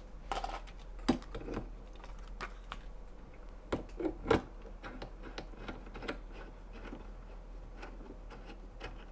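Scattered small clicks and knocks of a GH5S camera being turned and screwed onto the threaded mount of an articulating camera arm, the loudest knocks coming about four seconds in.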